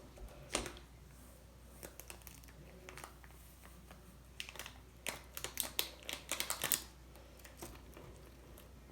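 Light clicking and tapping of a small plastic glitter container being handled over the slime, with a quick flurry of clicks in the middle.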